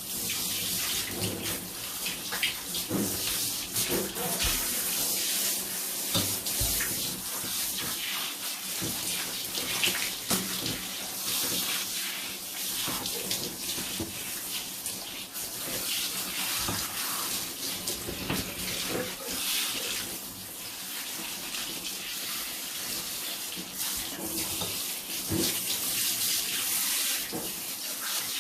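Water running steadily from a tap with uneven splashing as long hair is rinsed under it, washing out a coconut milk hair mask.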